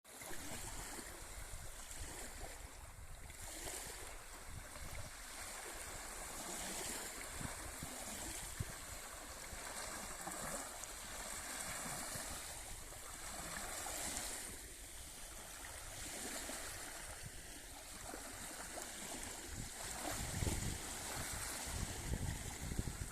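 Small waves of the Sea of Azov washing onto the shore, a steady rushing that swells and falls every few seconds.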